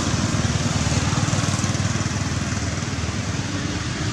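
A small engine running steadily, with a fast, even low pulsing.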